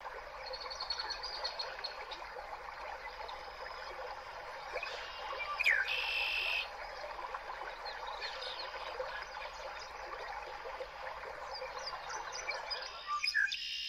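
A steady chorus of small chirping animal calls, with one louder call about six seconds in.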